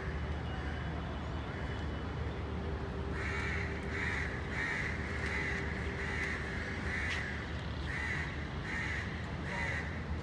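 A crow cawing over and over, about two caws a second, starting about three seconds in, over a steady low background rumble.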